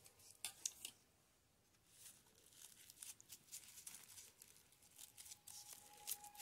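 Faint rustling and crinkling of folded paper handled in the fingers, in short scattered crackles.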